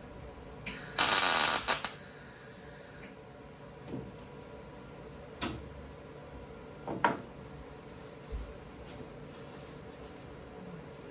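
MIG welder arc crackling in a burst of about two seconds as a tack weld goes onto a sheet-metal plug patch, followed by four short, sharp clicks spaced over the next few seconds.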